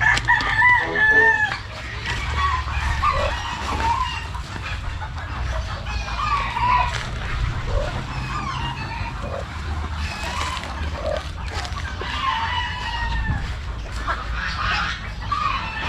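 Free-range chickens clucking with a rooster crowing, a string of short bird calls throughout, the longest and loudest about a second long at the start, over a steady low rumble.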